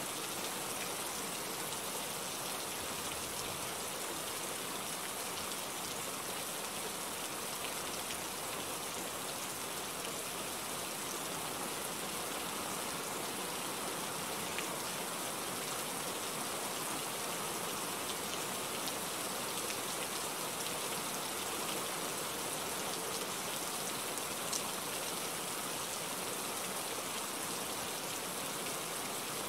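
Steady rainfall, an even hiss of falling drops, with a couple of single drops ticking a little louder around the middle and near the end.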